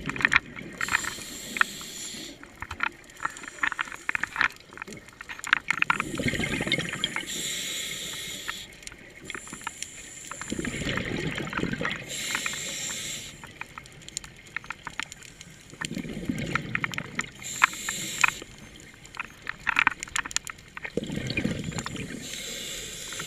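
Scuba diver breathing through a regulator underwater: each breath is a low rumble of exhaled bubbles followed by a hissing inhale, repeating about every five seconds, with small clicks and crackles of bubbles throughout.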